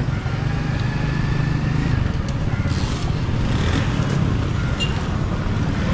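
A motorcycle running steadily at low speed, its engine a constant low hum, with street noise around it.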